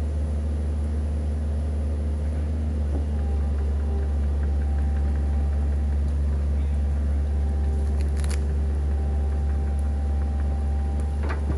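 Mini excavator's diesel engine running steadily as the machine crawls up a steep dirt slope, with a faint steady whine laid over it from about three seconds in and a couple of brief clicks near the end.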